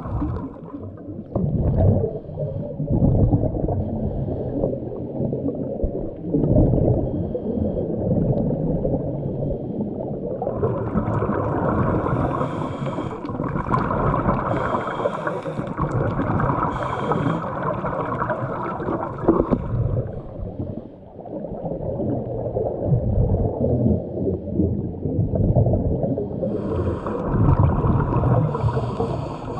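Muffled underwater noise: bubbling and rushing water picked up through the camera housing. A higher hiss joins it for several seconds around the middle and again near the end.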